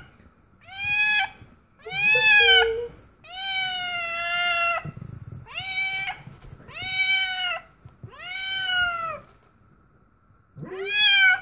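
Calico cat in labour meowing over and over: about seven drawn-out meows, each rising then falling in pitch, some lasting over a second, with short pauses between them.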